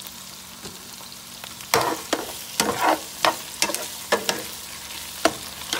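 Hot Italian sausages with onions and okra sizzling steadily in a pan over raised heat. From about two seconds in, a utensil knocks and scrapes against the pan again and again as the food is stirred.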